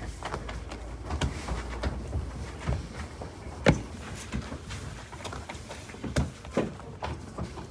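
Scattered knocks and taps of hands and tools working samsa dough on a wooden table, over a low steady hum. One sharp knock stands out about halfway through, with a few more toward the end.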